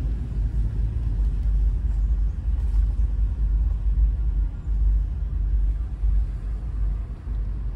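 Low, steady rumble of engine and road noise heard inside a car cabin while driving slowly.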